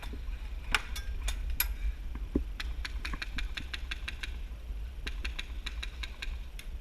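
Airsoft gunfire: scattered sharp cracks, then quick runs of them at about five a second from a little over halfway in, over a steady low rumble.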